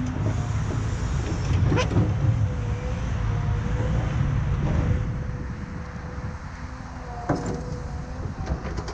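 Diesel engine of a Caterpillar earthmoving machine running under work, with a steady whine and a few sharp metal clanks; the engine eases off about five seconds in.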